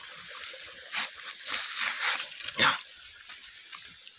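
Footsteps and rustling through undergrowth on a rocky slope, a few short scuffs and brushes about a second in and over the next second and a half, over a steady background hiss of running water.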